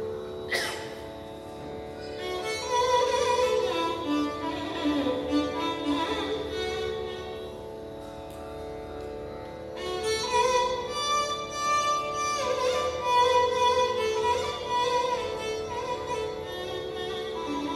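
Carnatic violin playing slow, unmetered gliding phrases in Mohana raga, in two long stretches with a short pause between them, over the steady drone of an electronic tanpura; no drum.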